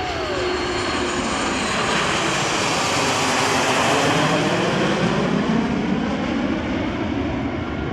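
Aircraft flying past overhead: a loud engine roar that swells to a peak about halfway through and eases off, its pitch falling as it passes.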